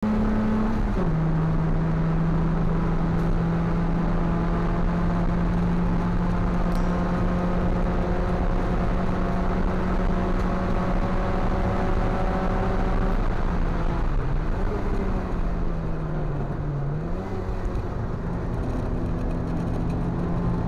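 1980s Proton Saga race car's four-cylinder engine heard from inside the cabin, running hard at high revs. The pitch drops sharply about a second in, as at an upshift, holds level for a long stretch, then dips and climbs back twice, as when braking and downshifting for a corner.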